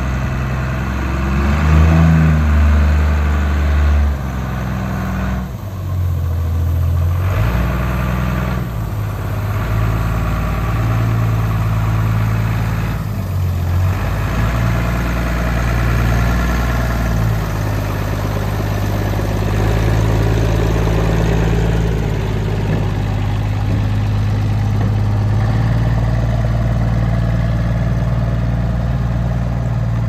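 Heavy truck's diesel engine running under load as it pulls away with a low-loader trailer, its speed rising and falling in steps in the first several seconds, then running steadily.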